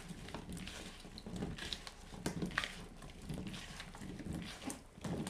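Hands tossing oiled raw potato chunks in a plastic bowl: irregular soft knocks and wet squishing as the pieces tumble against each other and the bowl.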